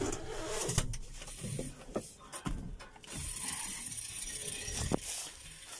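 Clicks, knocks and rattles of a John Deere tractor's cab door latch and door being opened, with a few sharp knocks as the driver climbs out.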